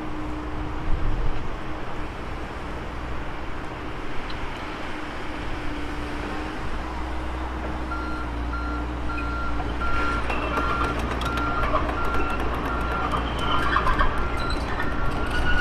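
Work truck's warning beeper sounding a steady string of short, evenly spaced beeps from about halfway in, over the low rumble of its running engine.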